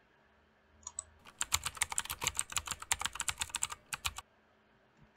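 Computer keyboard typing: a quick, fairly even run of key clicks, about eight a second, starting a little over a second in and stopping about a second before the end.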